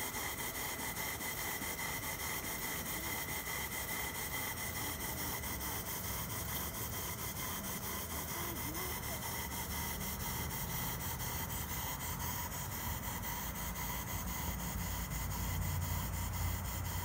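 Cotswold Heritage Perseus model steam engine running steadily, its exhaust beating in a quick, even rhythm over a constant hiss.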